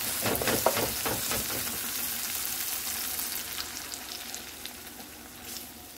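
Diced onions, tomatoes and peppers sizzling in hot oil in a nonstick frying pan, with a few scrapes of a plastic slotted spoon in the first second or so. The sizzle grows quieter over the second half as beaten egg is poured over the vegetables.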